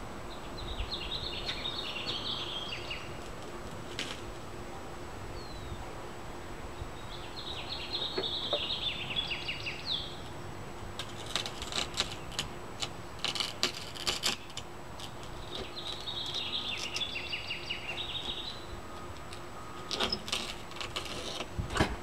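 A bird sings a short chattering phrase three times. Between the phrases, two runs of sharp clicks and scrapes come about halfway through and again near the end, from a cold knife being worked along the edge of a windshield.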